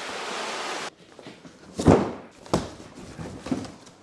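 Cardboard shipping box being opened and handled: a steady rushing hiss that cuts off about a second in, then a few dull cardboard thuds, the loudest about two seconds in.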